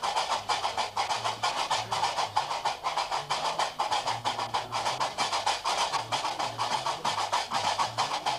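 Gnawa music: qraqeb (iron castanets) clattering in a fast, steady rhythm over the low plucked bass notes of a guembri.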